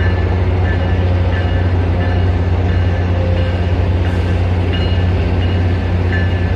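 MBTA commuter rail train running with a steady low hum, with short faint high-pitched tones coming and going.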